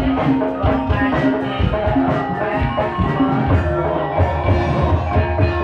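Live Javanese gamelan music for an ebeg dance: struck bronze metallophones ringing in repeated notes over a steady pattern of drum strokes.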